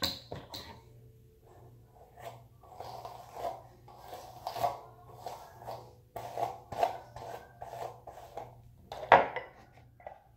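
Bristle hairbrush being pulled through curly hair in a run of short scratchy strokes, about two a second, with a sharp knock near the end.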